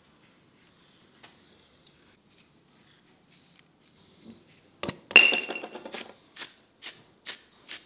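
Faint patter of salt falling on raw fish fillets, then a loud ringing glass clink as a glass pepper grinder is picked up, followed by the grinder being twisted over the fish, its short grinding strokes coming about twice a second.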